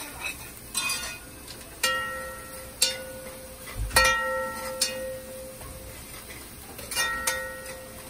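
Metal spoon stirring in a metal cooking pot and knocking against its side, several sharp clinks that each ring on briefly like a bell, the loudest about four seconds in.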